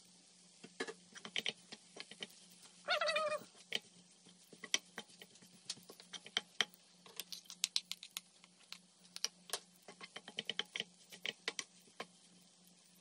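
Wooden spoon clacking and scraping against a nonstick frying pan while stir-frying rice, a fast irregular run of light clicks. About three seconds in, a short squeaky call sounds once.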